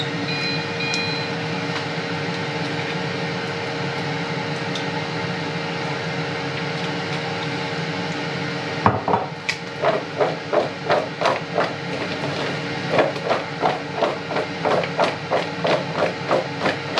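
A steady hum, then from about halfway a run of rhythmic knocks and rattles about twice a second: diced potatoes being shaken to coat them evenly with garlic oil.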